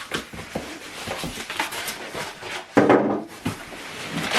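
Cardboard packaging being handled while the box is unpacked: scattered rustles, scrapes and light knocks, with a louder rough scrape or thump about three seconds in.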